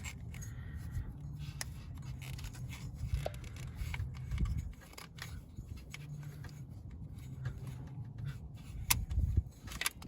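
Light clicks and rattles of a wiring harness and its plug connectors being handled and pushed on one-handed, over a low background hum.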